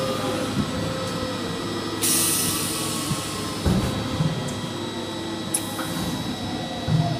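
CNC wood router running: steady high whine with motor tones that slowly slide in pitch as the machine moves, a few light clicks, and a sudden burst of hiss about two seconds in that lasts over a second.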